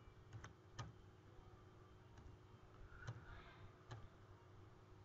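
Near silence: faint room tone with a few soft, isolated clicks.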